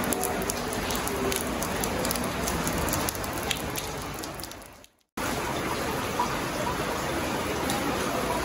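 Rain falling steadily, with sharp drops and drips close by, most of them in the first half. The sound cuts out briefly about five seconds in, then the steady rain resumes.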